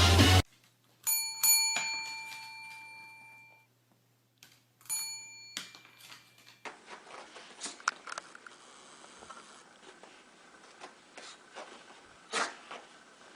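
A bell-like metallic chime struck twice in quick succession, ringing on for about two seconds, then struck once more, briefly. Faint scattered clicks and taps follow over a low hiss.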